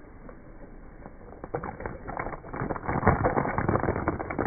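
Plastic Littlest Pet Shop figures being handled and knocked together on concrete: a quick run of clicks and scrapes starting about a second and a half in, loudest about three seconds in.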